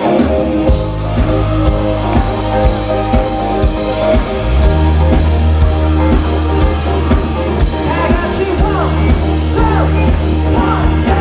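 Live rock band playing, with a drum kit keeping a regular beat under sustained chords; the bass comes in heavier about four and a half seconds in, and voices rise over the music in the last few seconds.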